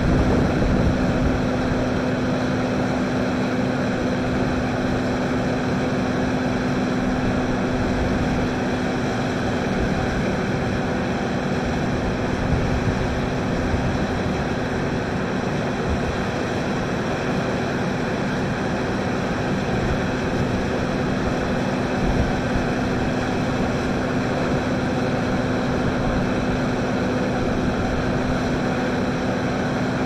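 Combine harvester running steadily, a constant engine drone with an even, unchanging hum.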